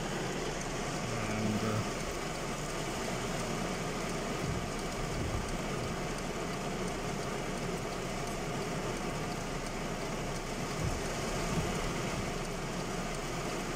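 Heavy rain falling on a car's roof and windshield, heard from inside the cabin as a steady hiss, with a low steady rumble underneath.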